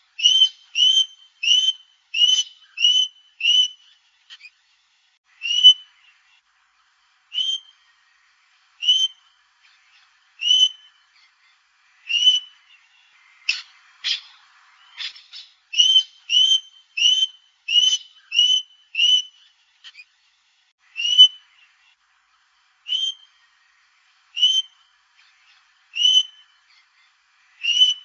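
Australian king parrot giving short, high whistled calls, in quick runs of about two a second alternating with single calls spaced one to two seconds apart.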